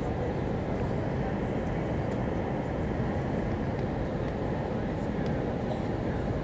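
Steady cabin noise inside an Airbus A320 on approach: the engines and the airflow over the fuselage make an even, low rumble.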